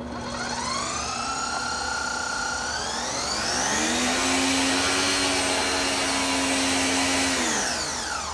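Electric pressure washer's motor and pump, powered through a triac speed controller, starting up: a whine rises in pitch about half a second in, levels off, then climbs to a higher speed about three seconds in. It runs steadily with the hiss of water spraying from the nozzles, then winds down and stops near the end.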